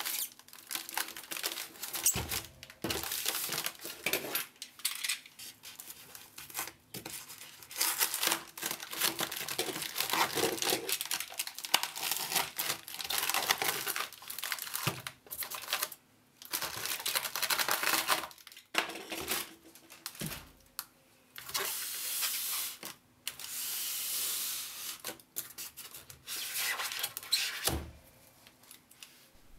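Packing tape tearing and plastic wrapping crinkling as a foam-packed parcel is unwrapped by hand, in irregular bursts with a few knocks from handling.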